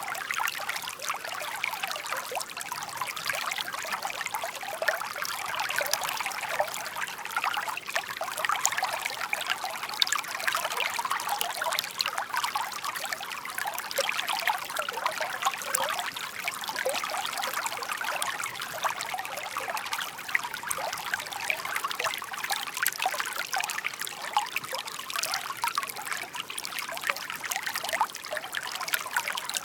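Shallow stream babbling over stones: a steady, close trickle of many small splashes and gurgles.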